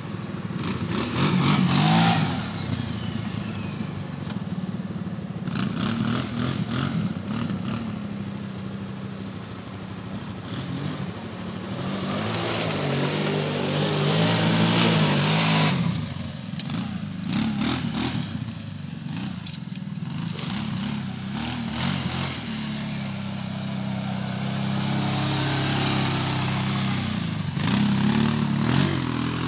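Kawasaki Brute Force 750 ATV's V-twin engine revving up and down as the quad is driven through mud, with several stretches of loud rushing noise.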